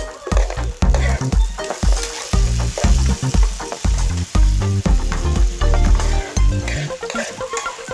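Chicken feet sizzling as they fry in oil in a nonstick frying pan, while a spoon stirs and scrapes them around with clinks against the pan.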